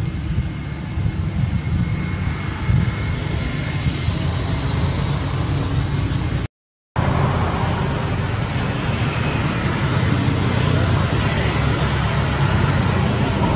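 Steady outdoor background noise, a low rumble with hiss, that cuts out completely for about half a second midway.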